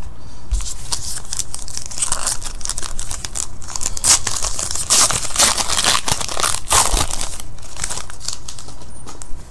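A trading card pack's foil wrapper being torn open and crinkled by hand as the cards are pulled out. It makes a dense crackling rustle full of sharp crinkles, busiest in the middle.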